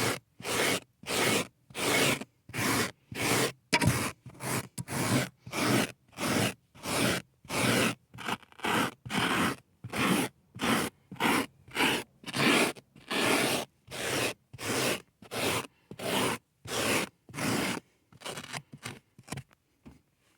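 Steady rhythmic scraping strokes across carpet, about two a second with brief silences between them, turning into a few shorter, fainter, quicker strokes near the end before stopping.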